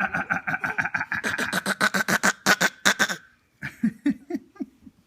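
A rapid staccato vocal noise: short, high-pitched pulses repeated about six times a second for some three seconds, then a few lower, weaker ones. It is a funny noise that he makes habitually.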